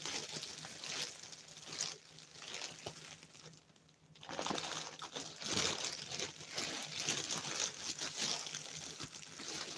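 Crinkling and rustling of a package bag being torn and pulled open by hand, in irregular crackling bursts with a short lull about four seconds in.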